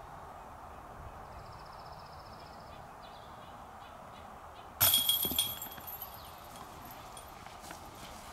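A disc golf disc striking a metal basket about five seconds in: a sudden clash of chains and metal that rattles and rings, dying away over about a second.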